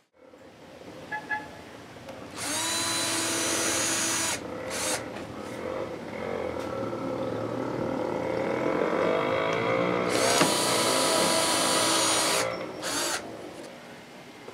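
Cordless drill boring holes in a plywood board. It runs steadily for about two seconds, blips once, then runs for about seven seconds with its pitch wavering as the bit cuts, and ends with a couple of short blips.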